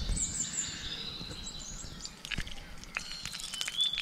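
Birds singing and calling, thin high whistled notes held and repeated, with a few sharp clicks or taps in the second half.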